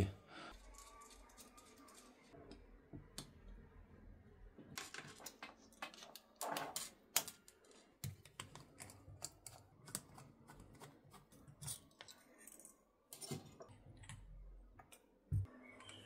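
Faint, irregular clicks and taps of small metal parts and hand tools being handled, as throttle cable adapters are fitted to the carburetors.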